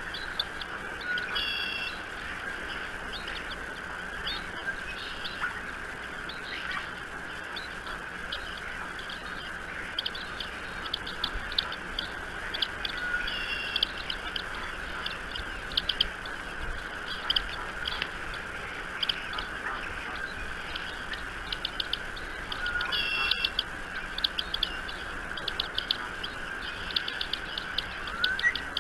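Birds chirping, with short repeated calls and trills and a few louder calls about two, fourteen and twenty-three seconds in, over a steady background hum.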